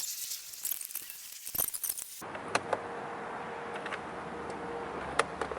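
Small metal pieces jingling and clinking for about two seconds while parts are handled, then a few scattered sharp clicks.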